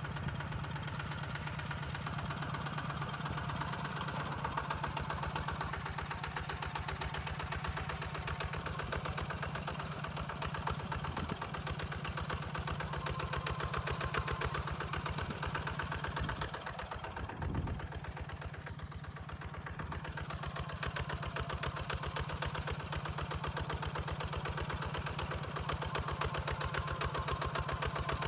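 Single-cylinder diesel engine of a two-wheel walking tractor running steadily under load while pulling a plow through dry soil, with a rapid even chug of firing pulses. The sound briefly drops in level a little past halfway, then comes back.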